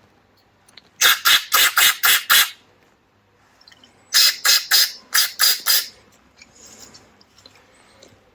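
Air blown through the small jets and passages of an outboard carburettor to clear them: two runs of about six quick, sharp puffs of hissing air, a little over a second apart.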